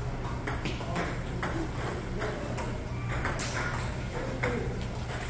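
Table tennis ball clicking sharply off paddles and table in a fast rally, a hit about every half second, over a steady low hum.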